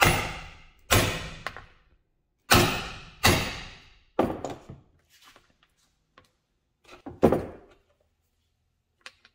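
Hammer striking a metal bearing driver to tap a new bearing into a snowmobile bogie wheel until it seats flush. About six sharp blows come in the first four and a half seconds, each ringing briefly, then one more loud clank about seven seconds in.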